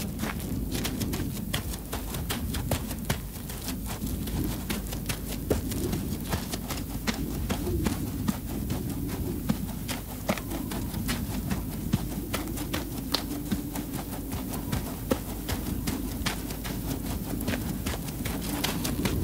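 Slow footsteps on a muddy dirt road, a knock about once a second, over a steady low rumble and a dense crackle of small clicks.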